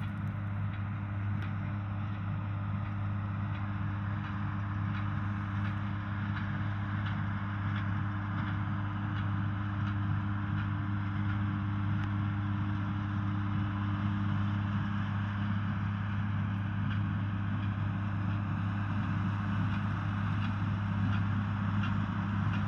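John Deere 4040's six-cylinder diesel engine running steadily while pulling a small square baler, with a faint tick now and then. It grows gradually louder.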